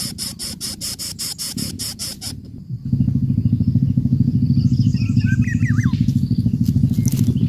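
A fast, evenly pulsed insect-like buzz, then about three seconds in a loud, low, rapidly throbbing motor-like drone starts suddenly and keeps going. A few short bird chirps sound over it.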